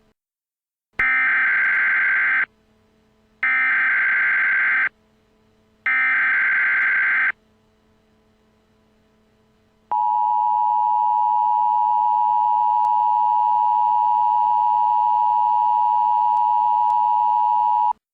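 Emergency Alert System header: three bursts of rapid, screechy SAME data tones, each about a second and a half long and a second apart. About ten seconds in, the steady EAS attention signal starts and holds for about eight seconds before cutting off sharply.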